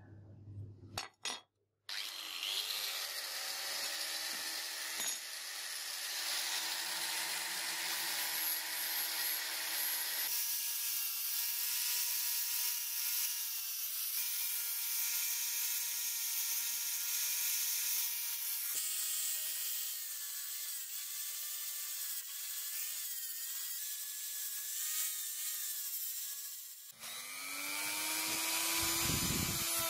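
Angle grinder with a sanding disc grinding the rusty steel blade of a butcher's chopper: a scraping hiss over the grinder's motor whine. It changes several times, and near the end the motor spins up again.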